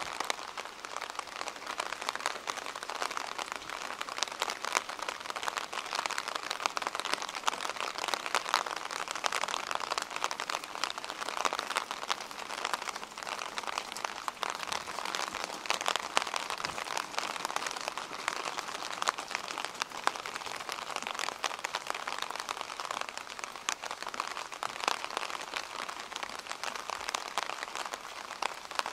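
Steady rain falling, an even hiss with a dense scatter of sharp, close drop clicks.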